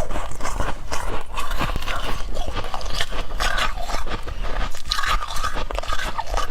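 Freezer frost crunching: a dense, continuous run of sharp crackles and snaps.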